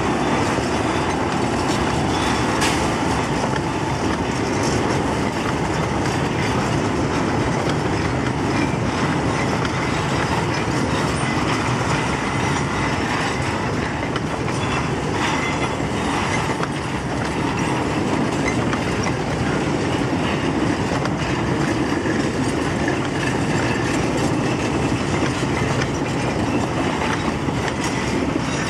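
A long train of loaded peat wagons on a 750 mm narrow-gauge railway rolling steadily past at close range. The wheels clatter over the rail joints.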